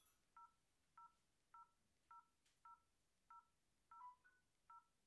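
Faint telephone keypad tones as a number is dialled: a steady run of short two-note beeps, about one every half second or so, with one beep of a different pitch near the end.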